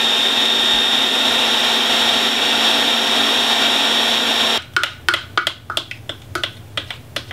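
Small food processor motor running steadily as it blends fresh parsley into baba ganoush, switched off abruptly about four and a half seconds in. Then a quick run of sharp scrapes and taps as a spatula scrapes the dip out of the plastic processor bowl.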